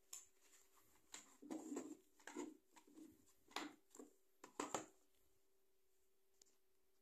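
Plastic DVD keep case being closed and handled: a string of sharp clicks and knocks, the loudest a quick double click about four and a half seconds in, as it is set down on a wooden table. A faint steady hum sits underneath.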